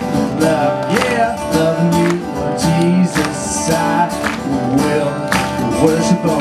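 Background music led by acoustic guitar strumming, with a steady beat about twice a second.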